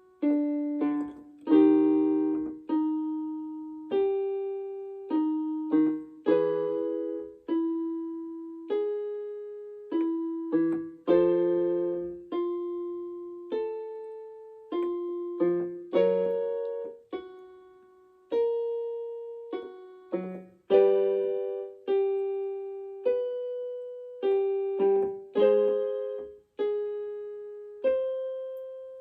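Piano playing a vocal-exercise pattern of single struck notes and chords, about one a second, each ringing and fading, the pattern repeated a step higher each time. It is the accompaniment for a gentle sliding 'zzz' warm-up that rises gradually in pitch.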